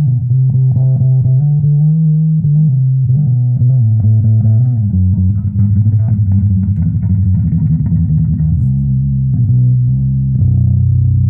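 Recorded music with a loud, deep bass guitar line, played back through AAD 260 hi-fi loudspeakers driven by a Harman Kardon HK 3490 receiver.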